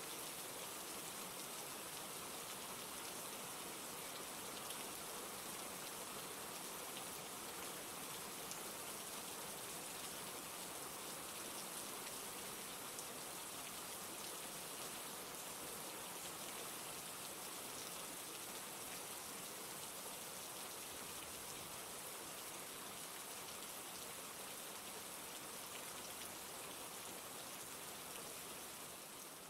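Steady rain falling, an even hiss of many drops, which starts to fade out near the end.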